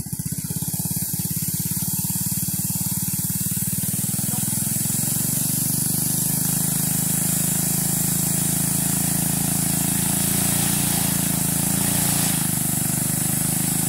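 Go-kart's small engine running steadily while the kart sits stuck in the weeds. Its note evens out a little about five seconds in.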